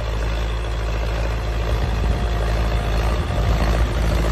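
Tractor's diesel engine running steadily under load as it pulls a field implement across tilled soil, a low even drone that grows slightly louder as the tractor comes closer.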